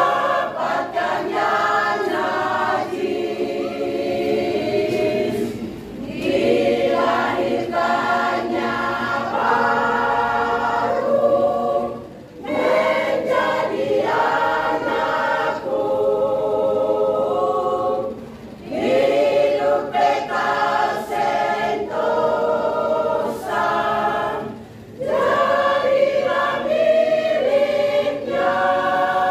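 A church choir singing together in phrases, with short breaks between phrases about every six seconds.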